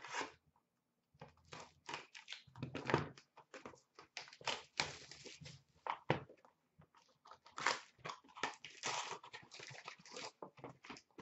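A 2016-17 Upper Deck Trilogy hockey card box being torn open by hand: a run of irregular tearing and crinkling as its cardboard and wrapping are ripped and the packaging inside is pulled out and handled.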